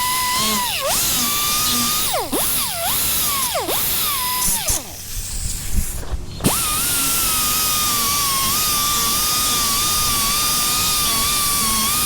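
High-speed rotary power tool whining at a steady high pitch, the pitch dipping briefly several times as it bogs under load while cutting. About five seconds in it winds down and stops, then starts again about a second and a half later and runs on steadily.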